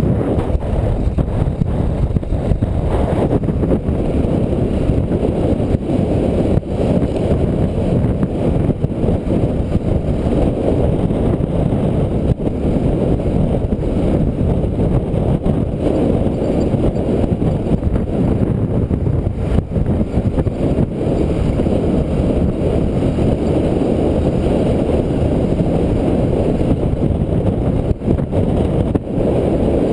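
Steady wind rumble buffeting the microphone of a moving motorcycle taxi, with the motorcycle's engine running beneath it.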